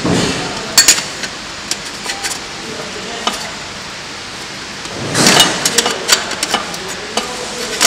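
Scattered clicks and light knocks of a stainless steel measuring cup and its plastic bracket being handled and seated into the slots of a packing machine's measuring-cup plate. A longer scraping rustle comes about five seconds in.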